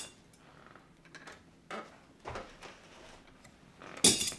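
Upholstery fabric being pulled and worked around a chair post by hand, with scattered rustles and knocks. There is a sharp click at the start and a louder, short sharp clack about four seconds in.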